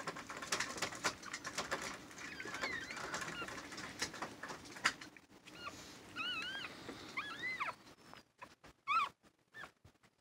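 Newborn puppies giving several short, high, arching squeaks from about six seconds in, the loudest near the end. Before that comes a stretch of wet clicking and rustling on newspaper bedding as the mother dog licks and cleans the litter just after whelping.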